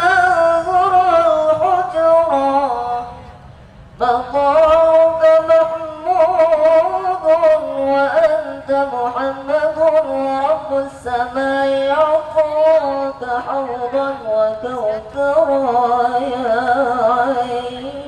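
A man sings a sholawat (Islamic devotional song) solo into a microphone, unaccompanied, in long, wavering, ornamented notes. He breaks off for a breath about three seconds in, then carries on.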